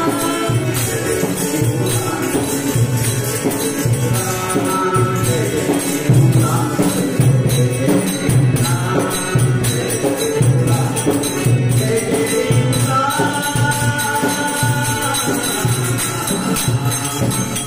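A man singing a devotional bhajan to harmonium accompaniment, over a steady low drum beat.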